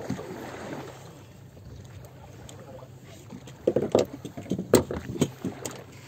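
Fishing boat's engine running with a steady low hum, and a cluster of loud knocks and thumps in the second half.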